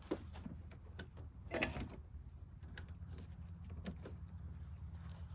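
A few light clicks and knocks from handling test leads and wiring, over a steady low hum.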